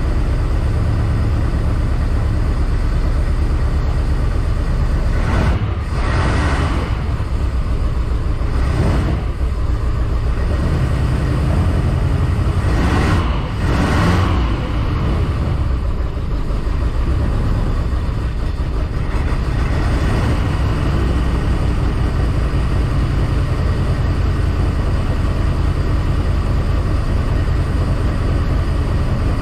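Boat engine running steadily out of the water, fed cooling water by a garden hose, with a low, even rumble. It is revved briefly three times in the first half, each time rising and falling back to idle.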